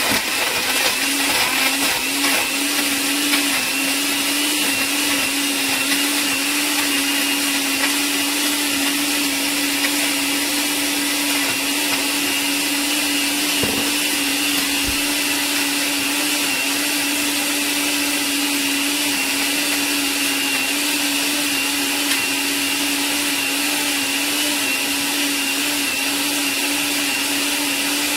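Countertop glass-jar blender running at a steady speed, blending a pale creamy drink made with coconut oil, with an even motor hum and whir.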